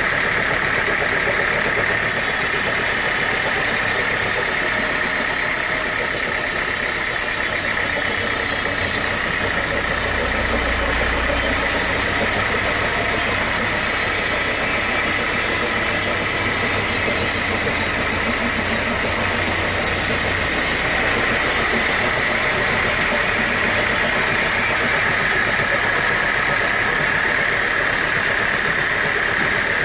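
Sawmill saw running steadily, with a strong whine. From about two seconds in until about twenty-one seconds in, a brighter hiss is added as it cuts through a log, then it goes back to its plain running sound.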